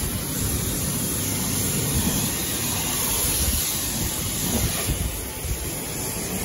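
Self-service jet wash lance spraying high-pressure water onto a van's bodywork, a steady hiss, with wind buffeting the microphone as an uneven low rumble.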